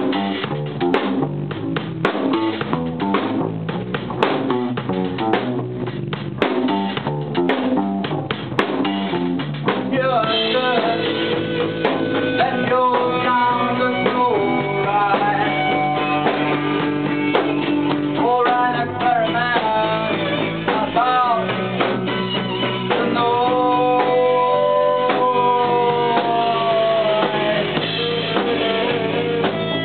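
Band music with a drum kit and guitars. For about the first ten seconds the drums hit hard under strummed chords. Then a lead guitar takes over, playing long notes with bends and slides over the backing.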